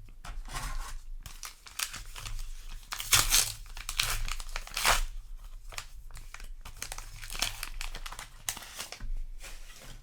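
A foil booster-pack wrapper being torn open and crinkled by hand, a run of irregular crackles that is loudest in the middle.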